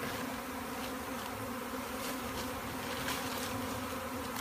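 Steady buzzing hum of a large honey bee swarm, many bees in flight together, with a few brief faint ticks.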